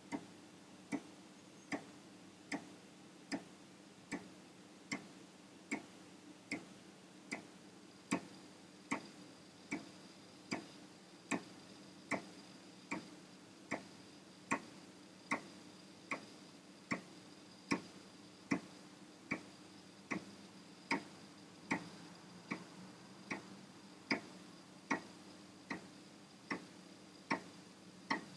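Amiga 1000's internal 3.5-inch floppy drive reading a disk track by track: the head steps with a sharp, even click about every 0.8 seconds over the steady hum of the spinning drive motor.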